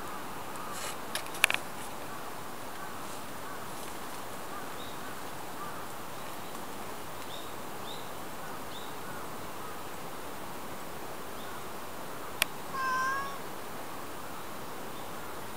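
A domestic cat meows once, briefly, about thirteen seconds in, over a steady hiss. A few sharp clicks come near the start, and one more just before the meow.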